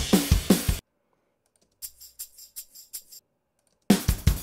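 Multitrack playback of a pop-punk drum part, with kick, snare and cymbals, cuts out suddenly under a second in. After a pause a faint run of quick high ticks lasts about a second and a half, then the drums come back in near the end.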